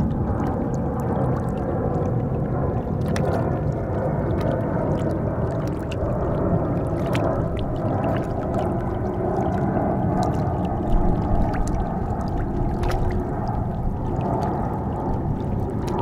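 Small waves lapping and gurgling among shoreline rocks, with scattered faint clicks and trickles, over a low, steady rumble.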